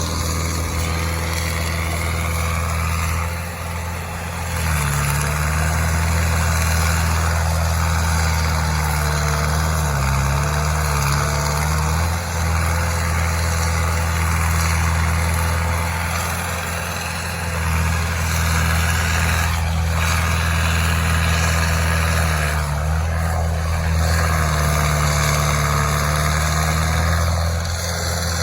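Engine of heavy landscaping equipment, such as a skid steer or stump grinder, running loudly close by. It revs up and settles back several times as it works.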